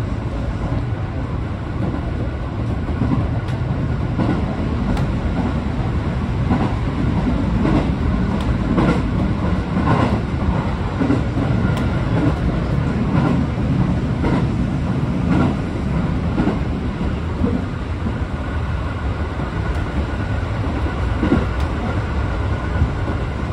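A 205-series electric train running along the track, heard from inside its driving cab: a steady low rumble of wheels on rail, with irregular clicks and knocks from the wheels passing over the track.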